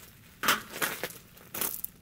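A person moving about on gravel and handling camping gear: about four short crunching, rustling noises, the loudest about half a second in.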